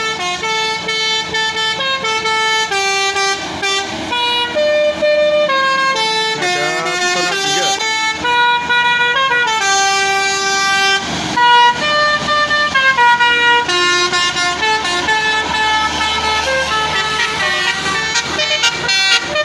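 Basuri 'telolet' multi-tone horns on two medium-size buses playing melodic tunes against each other in a horn battle. Held notes step up and down in quick runs, the two tunes at times overlapping.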